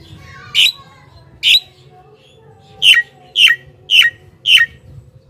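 Javan myna giving short, loud, harsh squawking calls: two about a second apart, then four in quick succession about twice a second.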